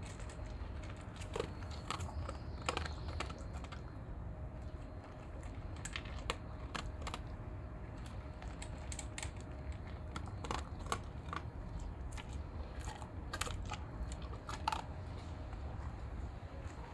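German shepherd crunching and chewing food, irregular sharp crunches a few times a second.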